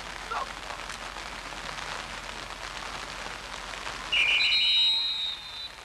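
Referees' whistles blowing the play dead after a tackle, about four seconds in: a short warbling blast and a higher steady tone held for over a second, overlapping. Under it a steady background hiss, with a brief shout just after the start.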